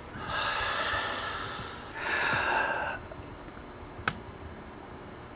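A man breathing deeply through his open mouth, a long breath in and then a shorter breath out, during a stethoscope check of a chest affected by asbestos-related lung disease. A small click follows about four seconds in.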